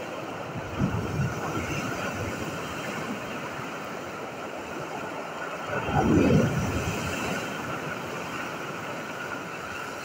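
Sea surf breaking on a pebble beach: a steady rush of waves with foam washing up over the stones. A small swell comes about a second in, and a wave crashes louder about six seconds in.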